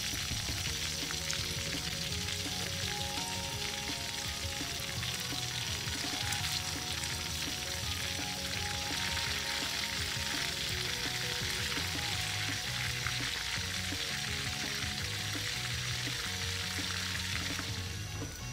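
Whole quail deep-frying in a wok of hot oil: a steady crackling sizzle that thins just before the end. Background music plays underneath.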